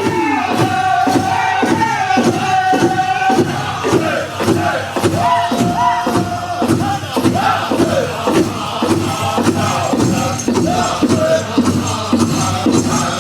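Southern-style powwow drum group singing a Crow Hop song in high, strained voices, with long held notes and falling glides. Underneath, the big drum is struck in a steady beat about two to three times a second.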